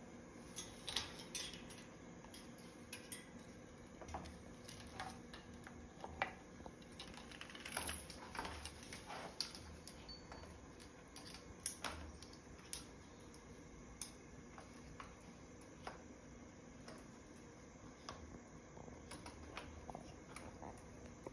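Green-winged macaw handling a hanging plastic ring-and-bead toy: scattered light clicks and clinks of plastic and chain, irregular and spread throughout, with a few soft thumps.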